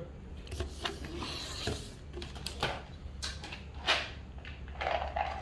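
A clear plastic tub of almonds being handled: a series of separate clicks and rustles, with a short hiss about a second and a half in, over a steady low hum.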